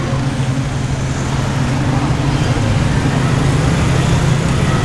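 Steady low engine hum of street traffic, even throughout with no single vehicle passing.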